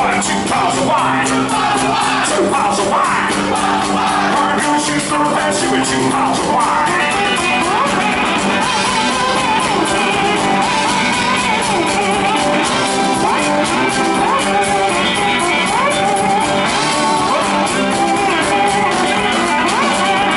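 Live country-blues band playing a fast song: fingerpicked electric guitar, drums and washboard keeping a dense, driving rhythm, with singing and shouting over it.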